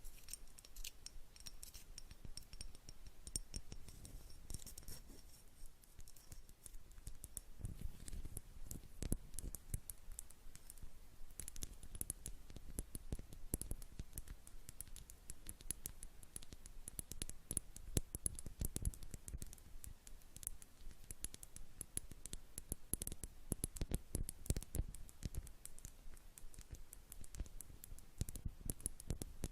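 Close, rapid, irregular tapping and clicking on a jar, many light taps a second.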